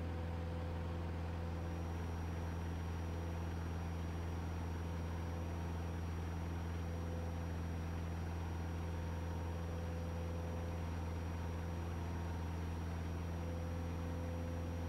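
Light airplane's piston engine and propeller drone, heard through the cockpit headset intercom feed as a steady low hum. It holds at reduced climb power, pulled back to 25 inches and 2,500 rpm after passing 500 feet. A faint high whine sits in the background from about a second and a half in.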